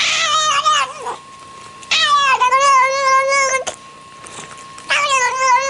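A cat yowling in three long, drawn-out calls whose pitch wavers up and down, with short pauses between them.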